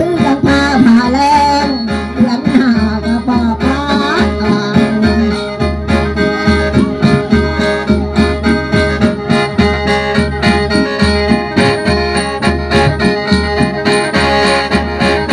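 Live folk music for a spirit dance: a khaen holds steady chords over a regular drum beat, with a woman's singing over the first few seconds.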